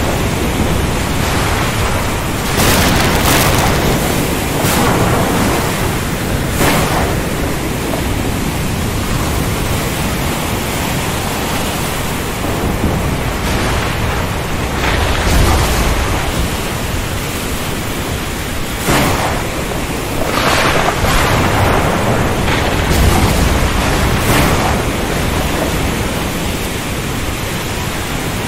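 Thunderstorm: a steady hiss of heavy rain, with thunder cracking sharply several times and rolling in deep rumbles, the heaviest about halfway through and again near the end.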